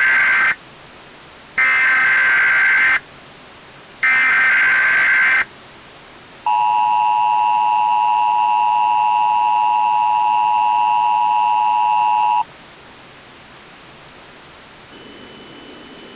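Emergency Alert System tones. The first is the end of one SAME header data burst, then two more chirping data bursts about a second long, each a second apart. These are followed by the two-tone EAS attention signal held for about six seconds. The alert they open is a law enforcement warning.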